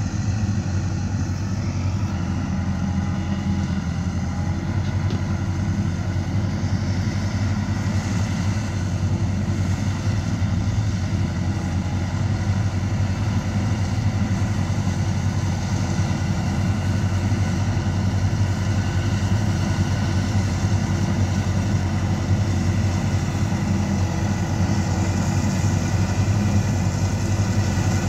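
Balkar B525 combine harvester running steadily while cutting wheat: a constant engine hum with the rush of the threshing machinery, growing slightly louder near the end as it comes closer.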